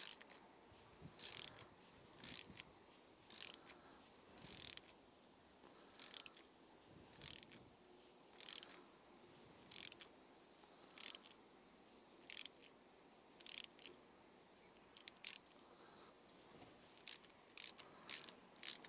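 Hand ratchet clicking in short bursts about once a second, each back-swing of the handle as a 5/16-18 tap is turned into a drilled-out broken bolt hole in a cast-iron engine block; a quicker run of clicks near the end.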